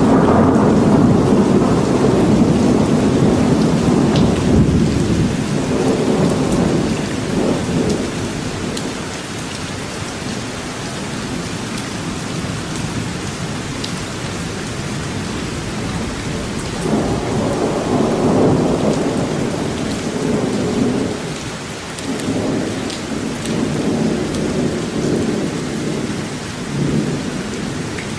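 Steady rain falling, with rumbles of thunder: one rolling away over the first several seconds and another swelling up about halfway through and rumbling on in waves until near the end.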